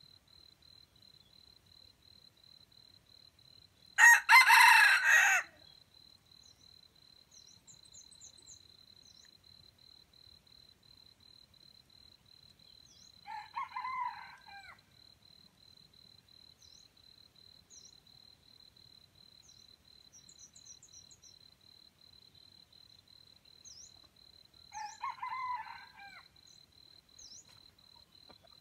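Red junglefowl roosters crowing: one loud, close crow about four seconds in, then two fainter, more distant crows later on. Small birds chirp here and there over a steady high tone.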